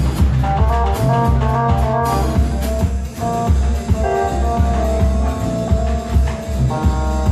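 Live instrumental band of drum kit, electric bass, guitar, keyboard, violin and oud playing a jazz-inflected arrangement of a Levantine folk song. A steady drum beat and deep bass line run under a melody of held notes, and more melody notes join in near the end.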